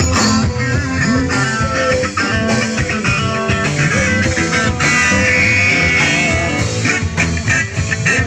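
Live rock band playing loud, with electric guitars and bass guitar over the full band.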